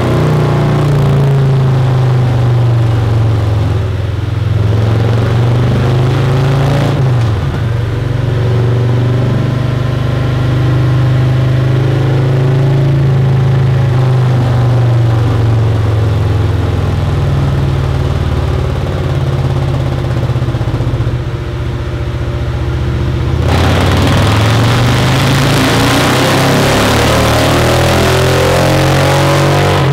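A 2020 Harley-Davidson Road Glide's Milwaukee-Eight V-twin running on a chassis dyno through a Khrome Werks 2-into-1 exhaust with three-step headers, its pitch falling and rising as the revs change. About two-thirds of the way through, the note turns suddenly brighter and harsher as the engine is opened up again.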